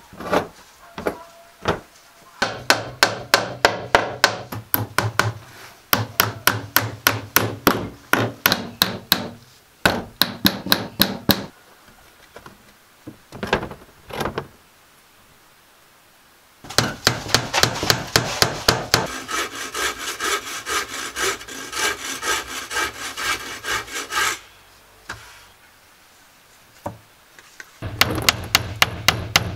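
Hammer driving nails into pine boards in quick runs of sharp blows, several runs with short pauses between them. A longer, denser run of rapid strokes on wood comes in the middle.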